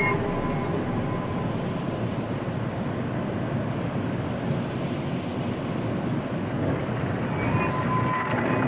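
Dark ambient horror music: a steady, wind-like noisy drone with no clear melody, a few faint held tones coming back near the end.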